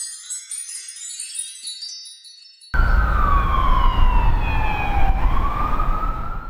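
A short chiming jingle plays for the first few seconds. It cuts off and an emergency vehicle's wail siren takes over, its pitch sliding slowly down and then rising again near the end, over a low rumble.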